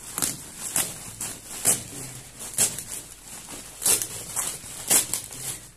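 Plastic courier mailer being torn open and crinkled by hand, a string of short sharp rustles and rips roughly once a second.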